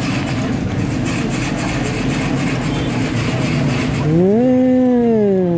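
Steady roadside street traffic noise. About four seconds in, a pitched tone rises, holds briefly and then slides back down, louder than the traffic.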